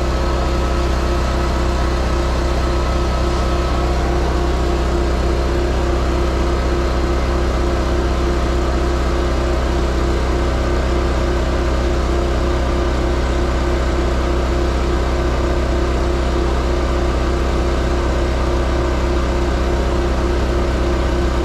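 An engine idling steadily, running the charge to a dead truck battery, with an even hum that does not change.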